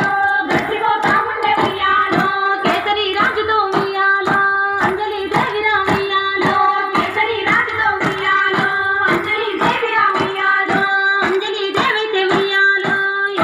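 Group of women clapping hands in unison, about two claps a second, in time with a Bathukamma folk song sung by female voices.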